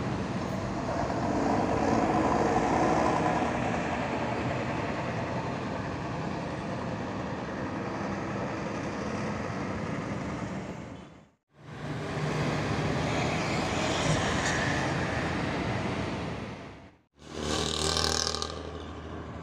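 Diesel engines of large intercity coach buses running as they pull away, mixed with road traffic. The sound cuts off abruptly twice, and a short, louder passage with a bright edge follows the second break.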